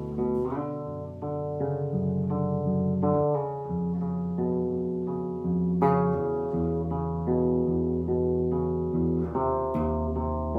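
Bass playing a jazz arrangement: plucked notes ring together as held chords over a low bass line, changing every half second or so.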